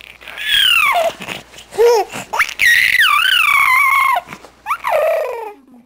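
Baby's drawn-out, high-pitched squealing vocalisations, several long sounds that slide down in pitch, the longest lasting over a second near the middle.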